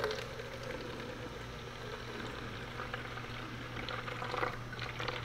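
Colloidal-silica concrete densifier concentrate poured from a plastic bottle into a plastic bucket, a faint steady trickle of liquid, over a low steady hum.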